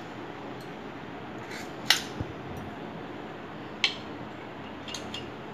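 A metal serving spoon clinking against a steel steamer and a plate as food is lifted out and set down: two sharp clinks about two seconds apart, then a few lighter taps near the end, over a low steady hiss.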